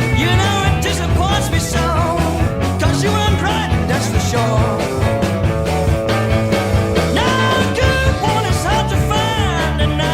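Blues-rock band playing an instrumental passage: a lead line bending and sliding in pitch over bass and drums.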